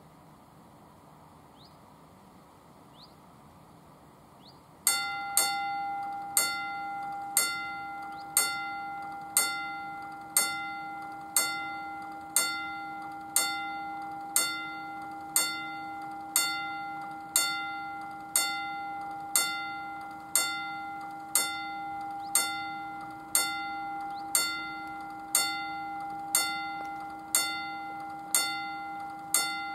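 Railway level-crossing warning bell, starting about five seconds in and striking about once a second, each ring carrying on until the next. The crossing is activated, warning of an approaching train.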